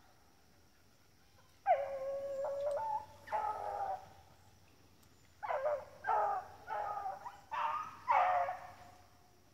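Beagles baying as they run a rabbit's scent trail: a long drawn-out bay about two seconds in and a second one soon after, then a quick string of about five shorter bays near the end.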